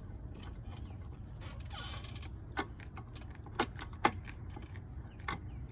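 Handling of screws, screwdriver and a metal outdoor receptacle cover: a short scrape, then a few scattered sharp clicks and light metallic rattles, the loudest about four seconds in, over a steady low hum.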